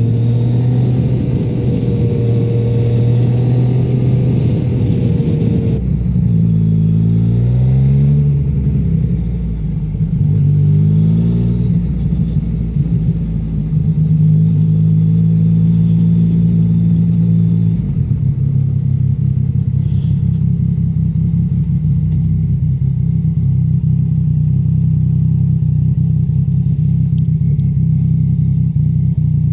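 Motorcycle engine heard from the bike itself. It runs steadily at first, its revs rise and drop several times in quick succession between about 6 and 12 seconds in, and it then settles to a steady, lower note for the rest.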